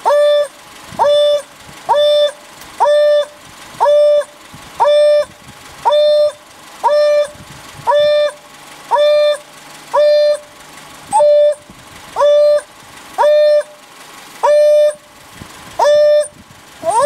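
African wild dog giving its repeated 'hoo' contact call, the long-range call a separated dog uses to locate its pack. It is a steady series of about eighteen clear hoots, roughly one a second, each rising quickly and then held at one pitch for about half a second.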